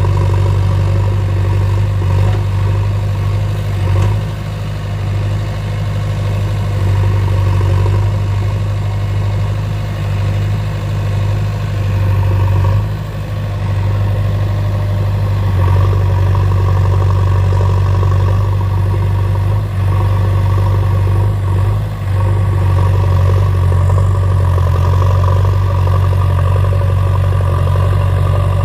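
Diesel engine of a JCB backhoe loader running steadily under work, its level dipping briefly a few times as the load changes.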